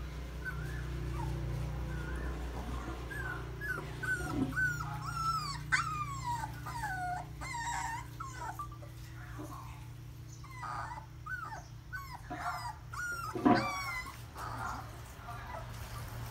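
Young puppies whimpering and crying, many short high-pitched squeals that bend up and down in quick succession, over a steady low hum. A louder yelp comes about thirteen seconds in.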